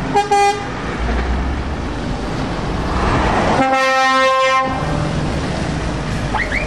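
A convoy of trucks and vans passing on a wet road, tyres hissing and engines running. There is a short horn toot right at the start, a longer, louder horn blast of several tones together about three and a half seconds in, and a brief rising toot near the end.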